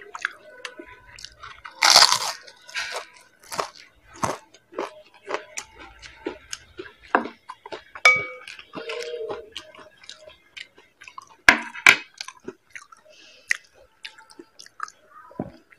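Close-miked crunching and chewing of pani puri, the crisp, hollow fried puris cracking between the teeth in irregular bites, loudest about two seconds in and again near the twelve-second mark.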